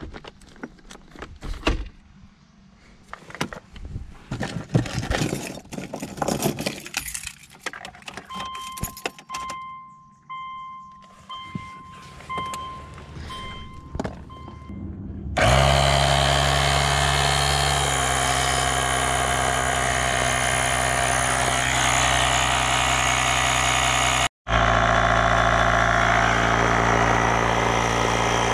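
Clicks and handling noises with a short series of electronic beeps, then a portable tire inflator (air compressor) starts about halfway through and runs loud and steady with a buzzing hum, cutting out for a moment near the end, as it pumps air into a slowly leaking rear tire.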